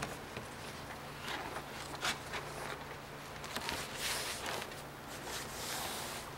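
Soft rustling and scuffing of a fabric grille cover as hands press it onto a car's front grille and stick down its Velcro strips, with a few light taps along the way.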